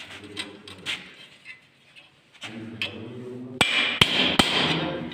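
Three sharp hammer knocks, about 0.4 s apart, a little past halfway, with a rushing noise around them.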